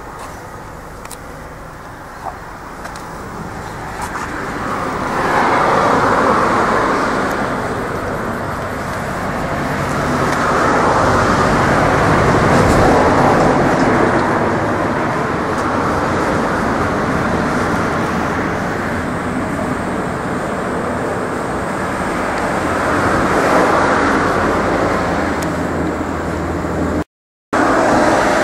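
Road traffic passing, a steady noise that swells and fades as several vehicles go by, three times louder than the rest. The sound cuts out briefly near the end.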